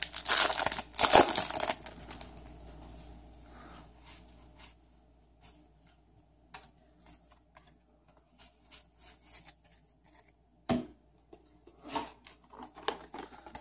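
A foil trading-card booster pack being torn open and crinkled, loud rasping tears in the first two seconds. Then come faint scattered clicks of cards being handled, and a single sharper knock near the end.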